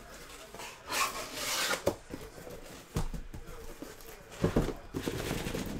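Cardboard shipping case being handled and opened, its flaps rubbing and scraping. There is a longer scrape about a second in and a few sharp knocks of cardboard later on.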